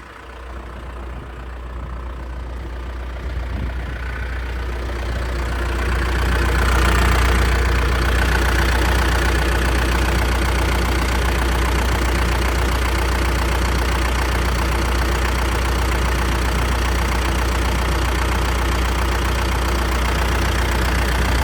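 John Deere 310SJ backhoe's four-cylinder diesel engine idling steadily, getting louder over the first six seconds and then holding even; it runs smoothly, with no blow-by.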